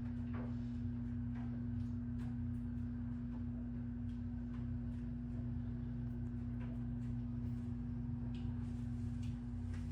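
A steady low hum holding one constant tone, with a few faint clicks scattered through it.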